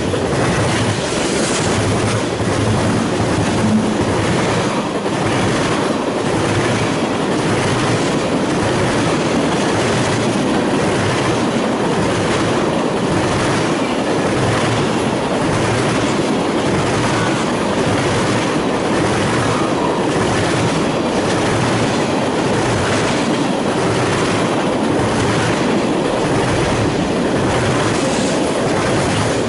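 Freight train of tank cars, covered hoppers and boxcars rolling past close by: steady noise of steel wheels on the rails, with a regular clickety-clack of wheels over rail joints roughly once a second.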